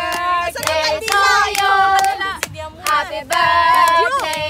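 A group of women singing a song together, clapping their hands in time, with short breaks between the sung phrases.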